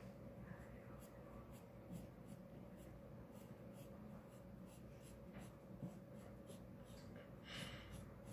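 Faint scratching of a pen nib on drawing paper as lines are drawn in short strokes, with one slightly longer stroke near the end.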